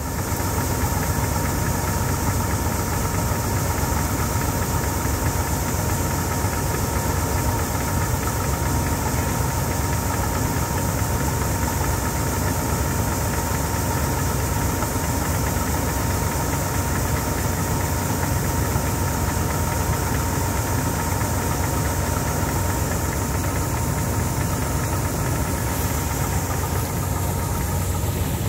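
Bizon Z040 combine harvester running steadily while it unloads grain through its auger into a trailer: a constant engine drone with a thin, steady whine over it.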